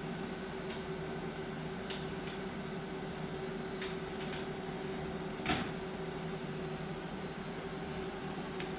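Steady machine hum, a constant low drone with a held tone, with a few light clicks and one louder knock about five and a half seconds in.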